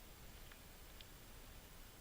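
Near silence: faint outdoor background hiss with two very faint ticks.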